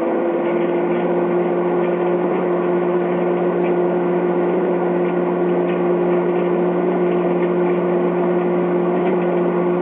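Microwave oven running on high with a steady hum, five CDs inside it, with faint scattered crackles over the hum.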